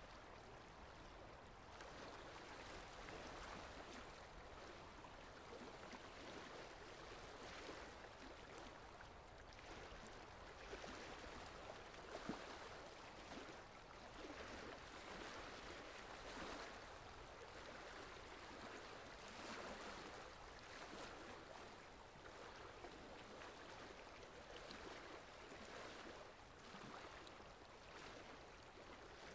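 Faint, steady rain noise, swelling and easing gently, with a single short tap about twelve seconds in.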